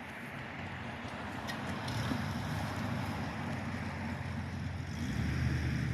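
Chainsaw running steadily while making the back cut through a maple trunk, growing gradually louder.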